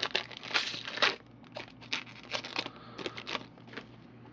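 Plastic-foil wrapper of a 2008 Upper Deck Spectrum baseball card pack crinkling and tearing as the pack is opened, loudest in the first second. It is followed by fainter swishes and ticks of the cards being handled and flipped.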